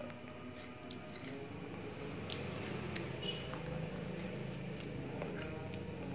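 Someone chewing a red velvet Oreo sandwich cookie: a few scattered sharp crunchy clicks over a low steady hum.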